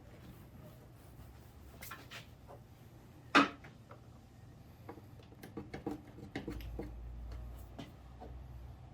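Handling noises: light clicks and taps, one sharp knock about a third of the way in, and a quick run of clicks a little past the middle.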